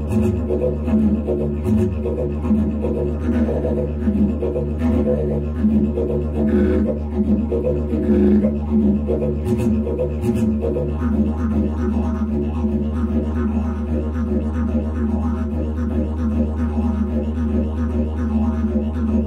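Background didgeridoo music: a steady low drone with rhythmically pulsing overtones.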